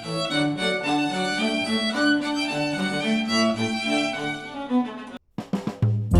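Instrumental music led by violin and other bowed strings, played through HIFIMAN planar headphones and picked up by microphones. About five seconds in, the track cuts to a brief silence and a new track starts with sharp plucked notes.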